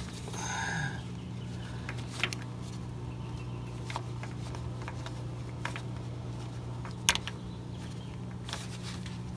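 Scattered light clicks and taps of metal as a gloved hand works at the loosened original oil filter adapter on a big block Chevy engine block, the sharpest click about seven seconds in, over a steady low hum. A brief higher two-tone sound comes just after the start.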